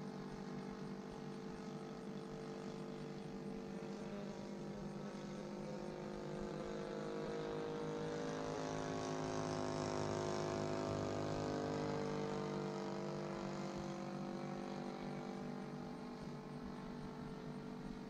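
Engine of a radio-controlled Seagull Models Nieuport 28 biplane running at a steady, unchanging throttle as the plane flies a pass. It grows louder and shifts slightly in pitch about ten seconds in as it passes closest, then fades. The throttle control has been lost, leaving the engine at just enough power to keep the plane flying.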